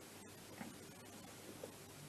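Near silence with a few faint knocks and rubbing as hands handle the plastic air box on the scooter engine.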